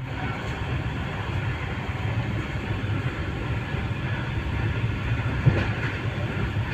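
Superfast passenger train running: a steady low rumble, with one louder knock about five and a half seconds in.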